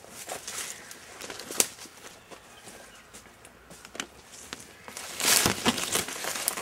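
Hurried footsteps crunching through dry leaf litter, uneven in rhythm, with a louder stretch of crunching about five seconds in.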